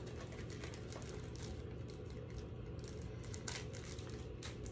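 A small plastic bag of press-on nail tips is being handled. Faint crinkling and light clicks come throughout, with a couple of sharper clicks near the end, over a low steady hum.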